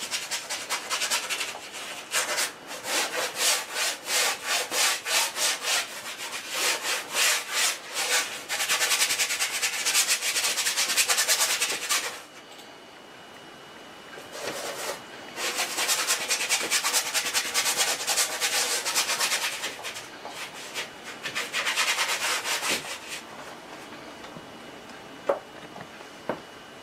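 Stiff bristle brush scrubbing oil paint onto a stretched canvas. It starts with rhythmic back-and-forth strokes, about two a second, then turns to faster, continuous scrubbing in several bouts with short pauses between them.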